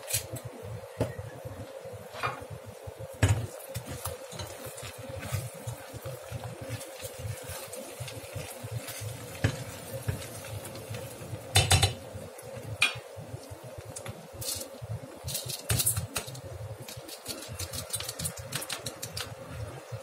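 Scattered taps, clinks and rustles of hands seasoning and mixing cubed celeriac and carrots in a stainless steel pot, with a few louder clanks against the pot around the middle and a faint steady hum underneath.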